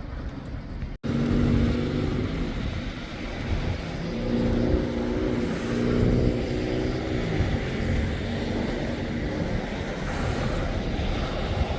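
A car engine running over a low rumble, its pitch drifting up and down for several seconds, after a brief cut-out in the sound about a second in.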